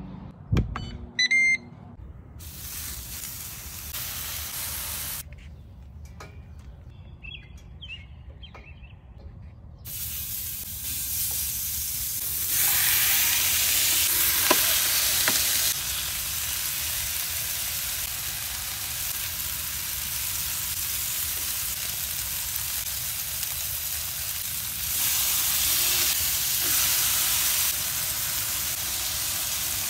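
Ground beef patties sizzling on the hot flat-top griddle plate of a Ninja Woodfire electric grill as they are smash-pressed and fried. The sizzle starts about ten seconds in and grows louder twice. A couple of short high beeps sound about a second in.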